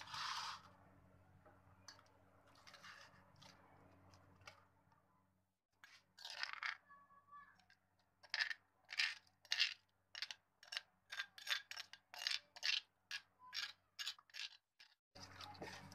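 Masala paste being scraped out of a stone mortar onto raw mutton in a steel bowl: a run of short scraping strokes, about two a second, through the second half, after a few scattered scrapes and one short ringing tone.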